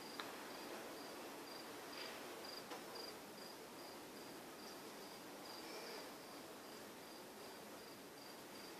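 A cricket chirping steadily at night: short high chirps repeating evenly about three times a second over faint background hiss.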